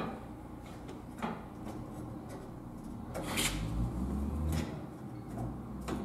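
About five light clicks and knocks of a bolt and nut being hand-fitted to the steel tubing of a ladder tree stand, the loudest about three and a half seconds in, with a low rumble of handling in between.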